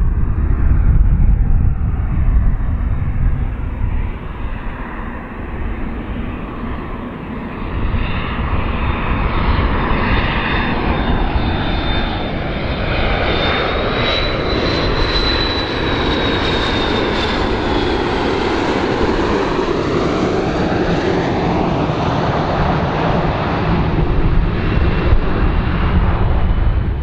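A McDonnell Douglas MD-80-series airliner's two tail-mounted turbofans on landing approach: a steady, loud jet rumble with a high whine that rises a little and then falls away about halfway through. Sweeping, phasing tones run through the noise as the aircraft draws near.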